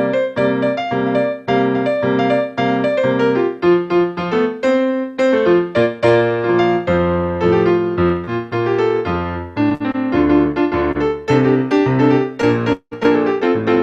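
Solo piano playing a steady flow of chords and notes as the closing postlude of a worship service. The sound cuts out for a split second near the end.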